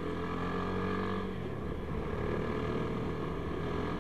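Sport motorcycle's engine running at a steady cruise while riding, over a low rumble; its tone shifts slightly about a second and a half in.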